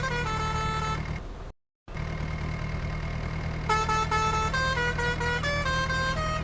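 A simple electronic tune of short, stepping notes over a steady low rumble. All sound cuts out for a moment about a second and a half in. The rumble and a single steady high tone then carry on alone until the tune comes back a little past halfway.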